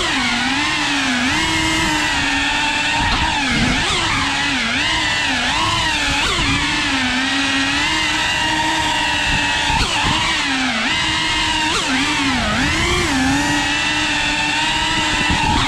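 FPV quadcopter's motors and propellers whining steadily. The pitch dips and climbs again every second or so as the throttle changes.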